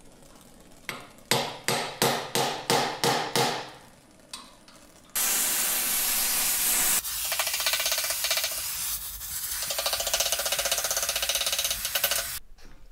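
About eight ringing hammer blows on steel, roughly three a second, then a gas welding torch hissing steadily as it heats a steel rivet in a vise. The hiss starts suddenly about five seconds in and cuts off near the end; the rivet is being heated until it is almost sparking so it can be hammered over to hold a leaf-spring cleat.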